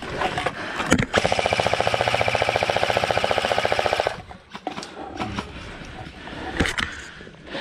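Airsoft electric gun firing one long full-auto burst of about three seconds, a rapid, even stream of shots starting about a second in. A single sharp click or knock follows near the end.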